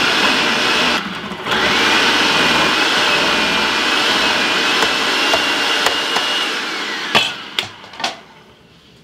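Food processor with a grating disc shredding raw potatoes pushed down its feed tube. The motor's whine wavers with the load, cuts out briefly about a second in and starts again, then winds down about seven seconds in, followed by a few sharp clacks.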